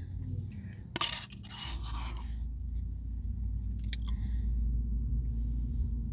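A spoon scraping ice cream from a Blizzard cup in a few short strokes, with eating sounds, over a steady low hum that comes in about one and a half seconds in.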